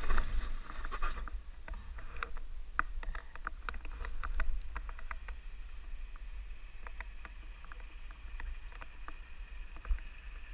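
Low rumble of wind on the microphone of a camera riding on a moving snowmobile, with many short, light clicks and ticks scattered through. It is louder with a brief hiss in the first second or so.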